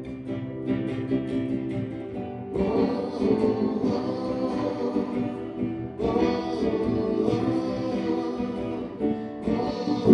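Classical guitar strummed, joined after about two and a half seconds by a man singing.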